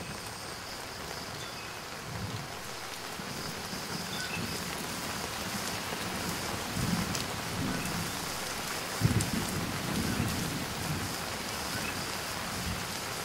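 Steady rain falling on wet stone steps and paving, an even hiss, with low rumbles underneath, the strongest coming in suddenly about nine seconds in.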